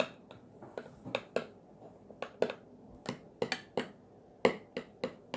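A metal spoon clicking and scraping against a ceramic bowl as it stirs a thick foamy shaving-cream and glue mixture. It gives quick, irregular taps, a few louder knocks among them.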